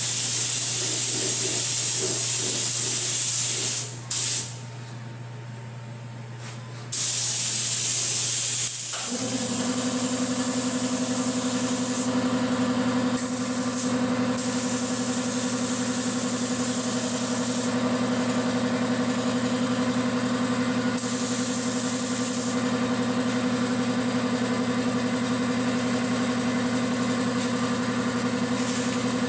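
Gravity-feed spray gun hissing in bursts as it sprays white paint with compressed air. About nine seconds in, an air compressor motor starts and runs with a steady hum, under further bursts of spray.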